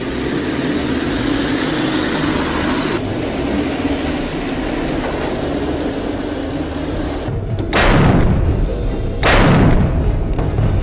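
A steady rumbling noise, then two loud cannon-shot booms about a second and a half apart near the end, each dying away over about a second: the simulated main-gun fire of a Heng Long RC tank's sound unit.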